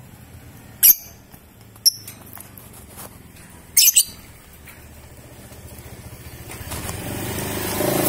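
A lovebird giving short, shrill single calls, four of them, the last two in quick succession. Over the last two seconds a motorcycle engine grows steadily louder as it approaches.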